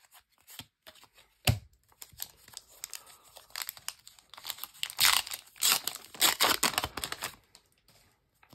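A Match Attax foil trading-card packet being torn open and crinkled, a run of crackling rustle that is loudest over a couple of seconds past the middle. A single knock about a second and a half in.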